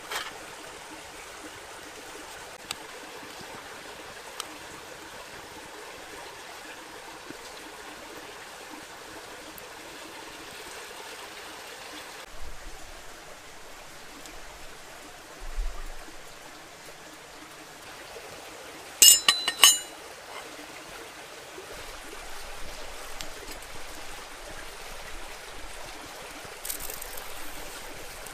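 Steady rushing of a flowing stream, with a couple of soft thumps partway through. A brief cluster of sharp, ringing clinks about two-thirds of the way in is the loudest sound.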